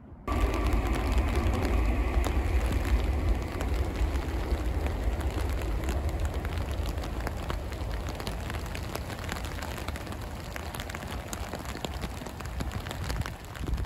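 Rain and wind on the microphone: a steady low rumble of wind buffeting with many small ticks of raindrops striking. A faint hum fades out within the first few seconds.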